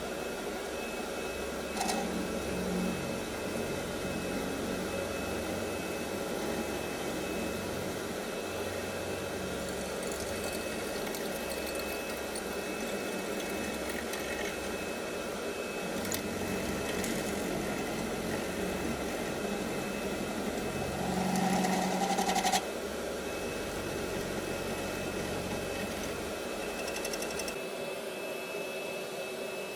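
A small machine running steadily with a low hum and a constant thin high whine, growing briefly louder and fuller about three quarters of the way through.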